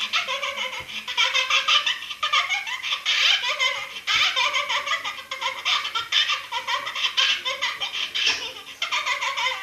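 High-pitched giggling laughter, rapid and pulsing, in runs of about two seconds with short breaks between them.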